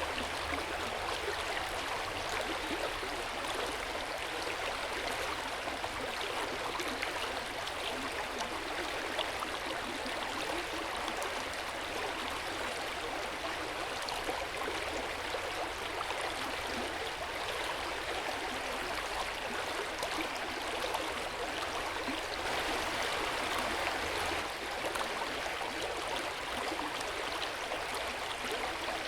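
Hot-spring water flowing steadily into an open-air bath with a gentle splashing and gurgling. It swells slightly about three-quarters of the way through.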